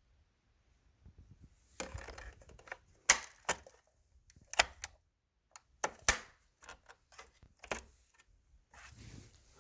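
A string of sharp clicks and knocks, irregularly spaced, starting about two seconds in, with the loudest knocks about three and six seconds in.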